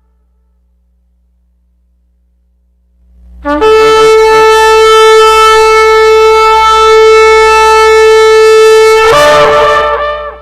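A single long, loud blast on a horn: one steady held note that starts after a few seconds of silence, then wavers and bends briefly near the end before dying away.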